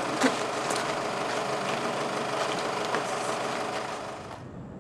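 Van engine idling steadily, with a sharp knock about a third of a second in. The engine noise cuts off abruptly near the end, leaving quieter open-air ambience.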